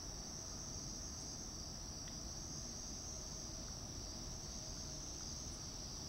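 Steady high-pitched insect chorus, an unbroken trill that keeps going without a pause.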